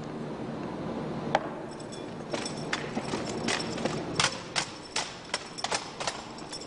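Sharp slaps and clacks of an armed drill platoon working their drill rifles in unison, with boot strikes on pavement: one strike about a second and a half in, then a quicker irregular run of strikes, about two or three a second.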